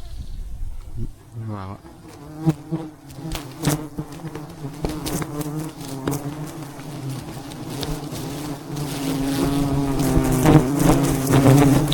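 A mass of wild honeybees buzzing around their hive, a steady droning hum that grows louder in the second half, with scattered sharp clicks and crackles over it.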